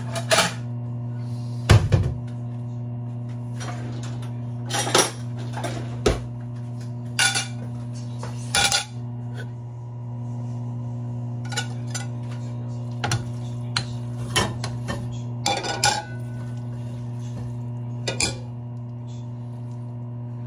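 Pots, pans and metal utensils clinking and knocking at irregular intervals, over a steady low hum.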